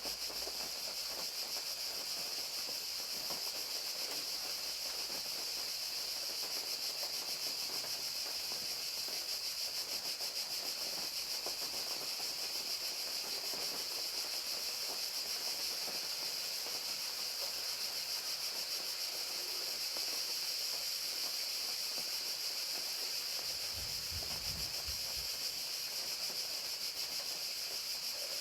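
Crickets chirping in a steady, continuous chorus, with rain falling. A brief low rumble comes near the end.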